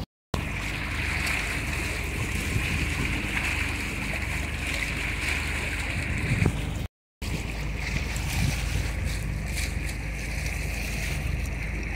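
Steady wind and water noise on open sea over a low, steady hum. The sound drops out completely twice, just after the start and about seven seconds in.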